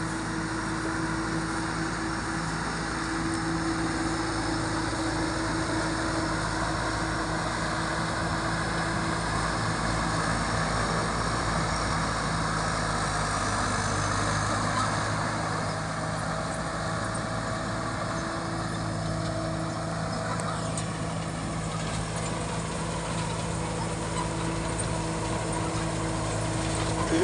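Rice combine harvester running steadily while harvesting, its engine drone holding an even pitch with small shifts in tone partway through.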